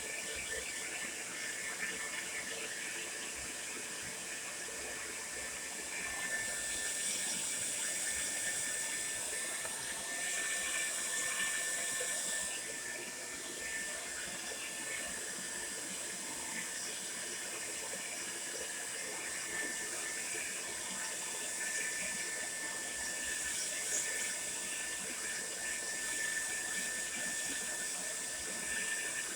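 Tresemmé Salon Smooth Professional hair dryer running steadily: an even rush of air with a thin, steady whine.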